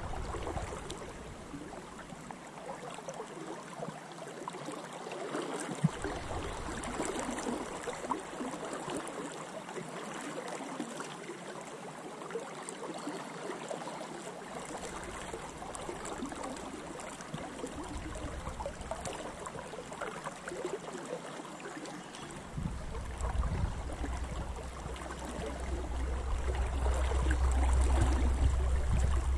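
Fast river in spate, a steady wash of flowing water close by. A low rumble comes and goes, then stays from about 22 seconds in and grows louder toward the end.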